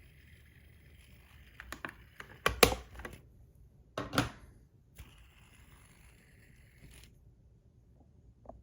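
A metal fidget spinner being handled: a few sharp metal clicks and knocks about two seconds in, the loudest near the middle, then another pair a second or so later, with a faint steady hiss in between.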